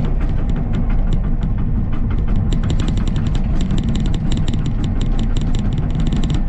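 A heavy machine's engine running steadily, with dense sharp crackling and popping that thickens about two and a half seconds in, fitting a freshly stoked brush fire.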